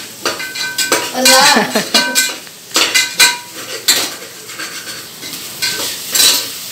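Metal ladle scraping and clanking against the inside of a metal pressure cooker while stirring tomato, onion and ginger-garlic masala, some strikes leaving a short metallic ring, over a faint sizzle of the frying.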